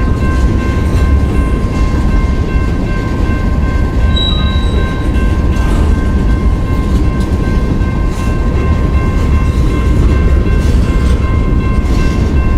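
A train rolling past close by: a loud, steady rumble of wheels on rail with faint steady high tones above it.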